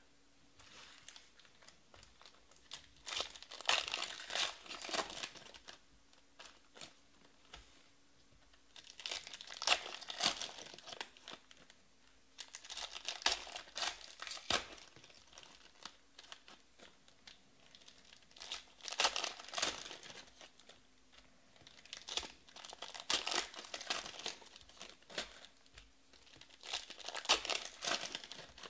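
Foil trading-card packs (2020 Panini Prizm Baseball) being torn open and their wrappers crinkled by hand, in about six bursts a few seconds apart.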